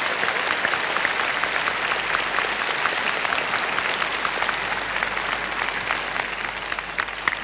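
A large audience applauding: dense, steady clapping that thins slightly near the end.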